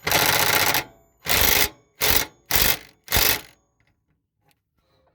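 Ryobi P235 brushed impact driver with a 15/16 impact socket, run in five bursts (one long, then four short) to tighten the riding mower's blade bolt.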